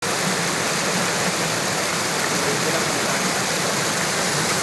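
Steady rush of a fast mountain stream flowing over rocks.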